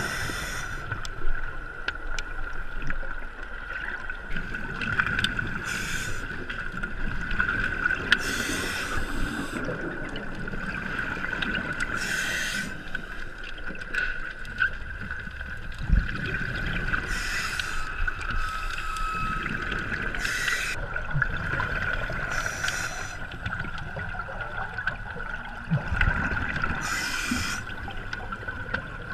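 Underwater recording of a scuba diver breathing: bursts of exhaled bubbles from the regulator about every three to five seconds, over a low rumble and a steady high-pitched hum.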